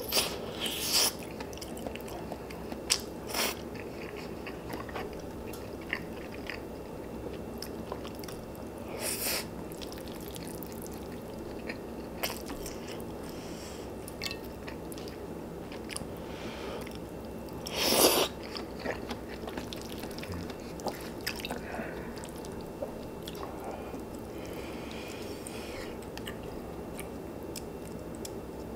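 Close-miked eating of gamjatang and seokbakji radish kimchi: chewing and biting with scattered crunches and small sharp clicks. A few louder sharp sounds stand out, the loudest and longest about 18 seconds in.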